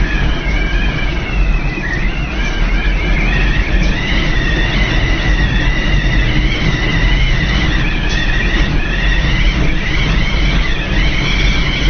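Tornado wind buffeting the microphone with a deep, steady rumble, and a wavering high-pitched howl above it throughout.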